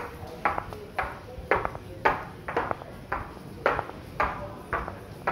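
Footsteps of hard-soled shoes walking on a tiled floor, about two steps a second, each heel strike a sharp knock with a short ring after it.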